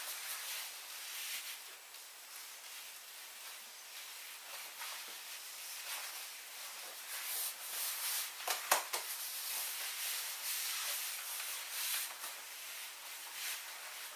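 Stiff PVC skirt rustling as the wearer walks and turns, the rustle swelling in the middle while the skirt swings out. A short sharp knock comes a little past the middle.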